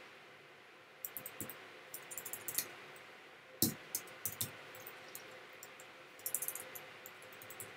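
Computer keyboard keys being typed: faint, sharp keystroke clicks in small clusters, with a quick run of keystrokes near the end.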